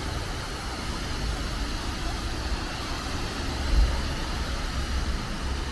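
Fountain jets splashing into a pool, a steady hiss of falling water over a low rumble of city traffic, with a brief low thump about four seconds in.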